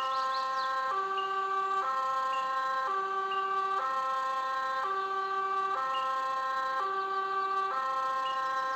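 Two-tone siren switching back and forth between a low and a high note roughly once a second, the hi-lo pattern repeating steadily.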